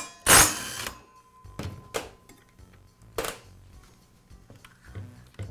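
Cordless drill spinning briefly just after the start to back out a circular saw's blade bolt, followed by a few light metal clinks as the bolt and flange washer are set down on the steel bench top.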